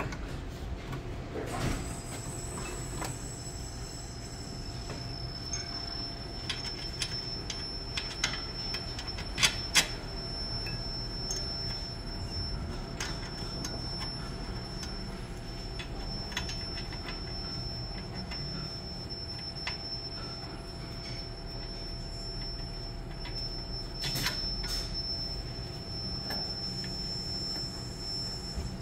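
Scattered metallic clicks and knocks of brake parts being handled and fitted back on by hand, over a steady high-pitched whine.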